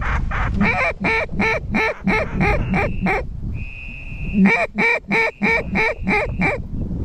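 Hunter's duck call blown in a fast, even series of loud quacks, about three a second, broken by a short pause about halfway, with a held high whistle-like tone in the pause and near the end; calling to ducks coming in to the spread. Low wind noise runs underneath.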